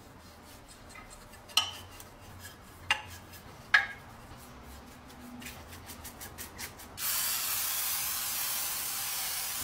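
A bristle brush scrubbing bluing liquid over a steel lock case, with three sharp taps of the brush against the metal. About seven seconds in, a spray of oil onto the case starts as a steady hiss.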